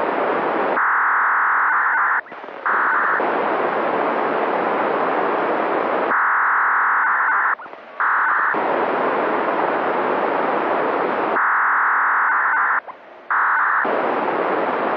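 Radio receiver tuned to a municipal disaster-prevention wireless channel, giving a loud steady static hiss. About every five seconds the hiss gives way to a second or so of a narrower, steady mid-pitched tone with a brief dropout, then the hiss returns; this happens three times.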